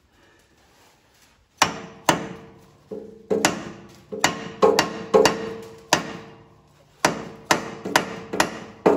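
A hammer strikes a metal driver about fifteen times at an uneven pace, each blow ringing briefly, pressing a new rockshaft seal into the tractor's cast housing. The blows start about a second and a half in.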